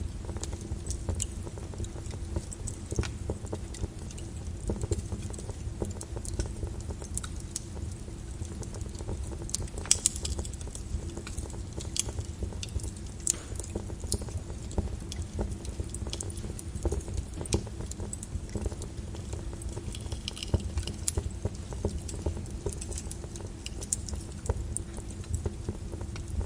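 Wood fire in a fireplace crackling, with frequent sharp pops and snaps over a low steady rumble and a faint hum; a few louder pops come about ten seconds in.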